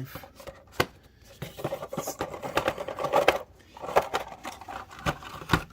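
Cardboard and plastic product packaging being handled and pulled apart: rustling and crinkling with a series of sharp clicks and taps.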